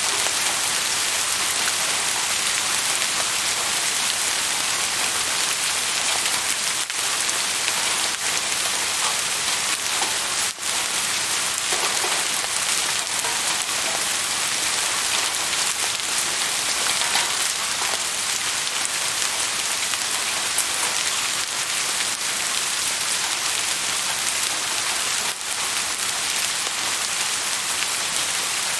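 Steady rain falling, a dense even hiss of many drops on a surface, with two momentary dips in level, about ten seconds in and near the end.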